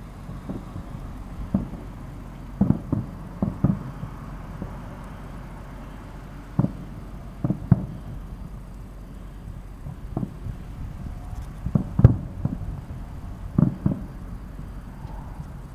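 Distant fireworks booming: about fifteen irregular, dull bangs from aerial shells, some in quick pairs, the loudest about twelve seconds in, over a low steady background hum.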